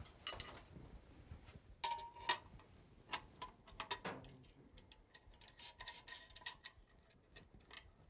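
Light metallic clicks and clinks of half-inch EMT conduit and its connector being fitted into a metal electrical box, scattered and irregular, a few with a short ring.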